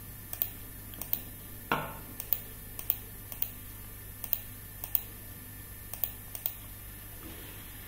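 Single sharp clicks at a computer, about two a second and unevenly spaced, from a mouse and keyboard being worked in drafting software. A brief voice sound comes in near two seconds in, over a steady low hum.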